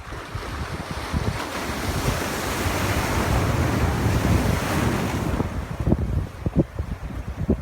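Ocean wave breaking and washing in. Its hiss swells over a few seconds and dies away about five seconds in. Low gusts of wind buffet the microphone.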